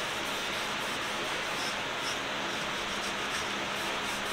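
Steady, even hiss with a faint low hum underneath: the room's background noise, with no distinct sound standing out.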